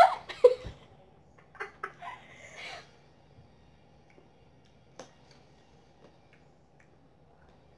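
Mostly quiet room tone, with a brief bit of voice at the very start, a few small clicks and a short soft rustle about two seconds in, and one sharp click about five seconds in.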